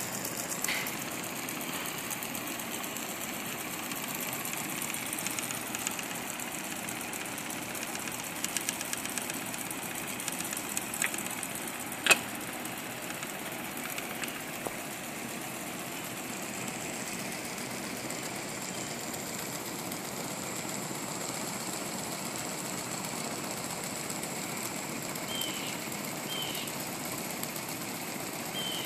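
Weeden Model 8 toy steam engine running under steam: a steady, rapid mechanical ticking from its small piston and flywheel. A sharp click stands out about twelve seconds in.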